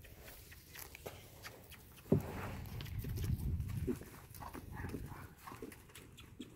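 Thoroughbred horse's hooves beating on dirt as it trots and canters around a pen. A louder, low-pitched sound starts suddenly about two seconds in and lasts nearly two seconds.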